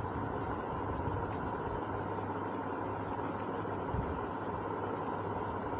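Steady low hum and hiss of background noise, with one soft knock about four seconds in.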